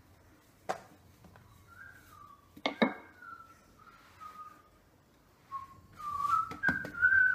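A person whistling a slow tune, held notes stepping up and down in pitch, broken by a few sharp knocks from the rolling pin and hands on the counter as chapathi dough is rolled out; the loudest knocks come near three seconds in.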